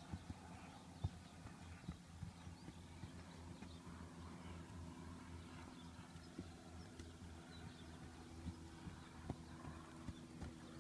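Faint, irregular hoofbeats of a ridden horse on hard, uneven grass ground, the hooves bare, the shoes having just come off.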